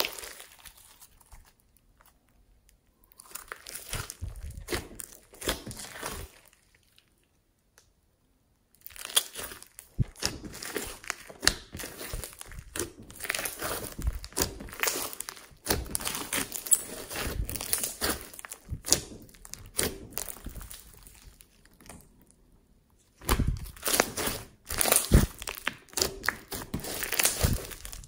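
Hands kneading and pressing glossy slime full of foam beads (floam), giving bursts of many small sticky crackles and pops, broken by pauses of a second or two.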